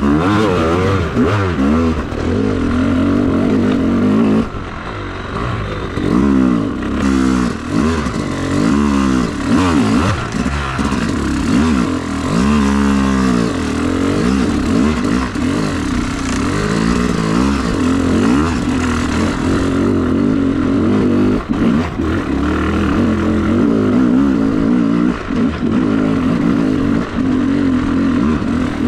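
Yamaha YZ250 two-stroke dirt bike engine being ridden on a trail, revving up and down over and over as the throttle is worked. It eases off briefly about four and a half seconds in.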